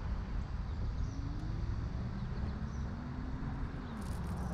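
Wind rumbling on the microphone, with a faint motor hum that rises in pitch about a second in, holds, and drops a little near the end. Faint bird chirps come through above it.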